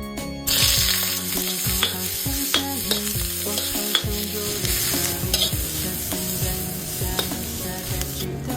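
Freshly dug bamboo shoots stir-frying in a hot pan: a steady sizzle that starts about half a second in and stops just before the end, with the sharp clicks of a spatula striking and scraping the pan.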